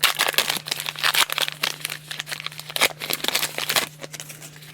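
Crinkly foil wrapper of a trading-card pack being handled and torn open: a dense, irregular crackling that stops about four seconds in.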